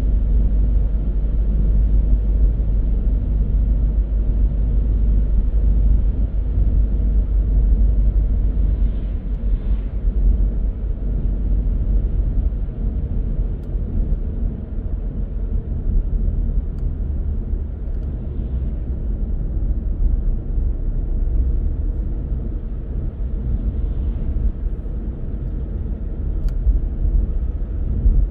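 A car driving along a road: steady low rumble of tyres and engine.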